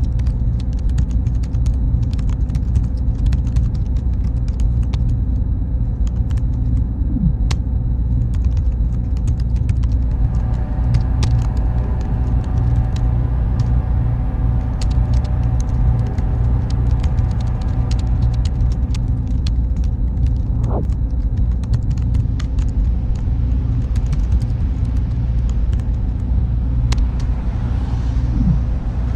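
Computer server room ambience: a steady, loud low hum and rumble from machine cooling, with many faint, light clicks scattered throughout and a few brief falling tones.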